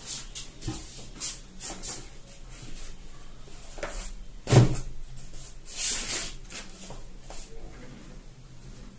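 Handling and movement noises in a small room: scattered light clicks and rustles, with one louder knock about four and a half seconds in.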